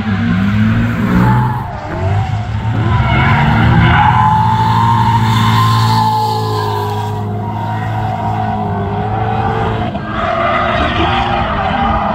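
A car drifting: its engine held at high revs while the tyres squeal through the slide, loudest about four seconds in.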